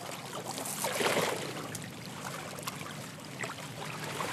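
Shallow seawater sloshing and trickling as a hoop-framed fish net is lifted and handled, water draining through the mesh, with a swell of splashing about a second in.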